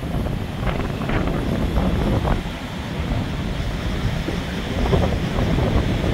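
Gusty wind buffeting the microphone over the rush of heavy storm surf breaking and washing up the beach.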